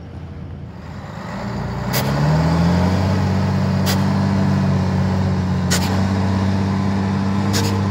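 1994 Volvo A35 articulated dump truck's diesel engine speeding up as the truck drives off, then running steadily and loud as it drives past. A short sharp tick repeats about every two seconds over the engine.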